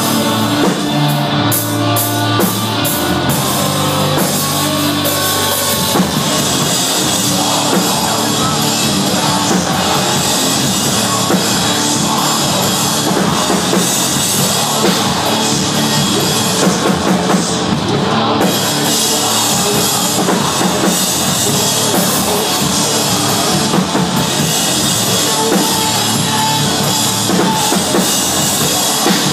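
A metalcore band playing live and loud: distorted electric guitars and a drum kit. It opens on a few seconds of held guitar chords before the full band with drums comes in.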